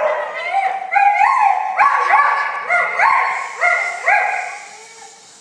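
A dog barking excitedly in rapid, high-pitched yaps, about three a second, echoing in a large indoor hall. The barking stops about four and a half seconds in.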